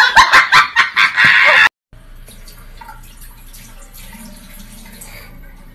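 Loud, rapid bursts of honking laughter that cut off suddenly after about a second and a half, leaving faint room noise with a low hum.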